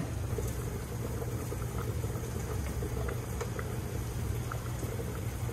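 Hogfish fillets frying in hot olive oil and a pot of pasta water boiling on the stovetop: a steady hiss over a low hum, with a few faint pops.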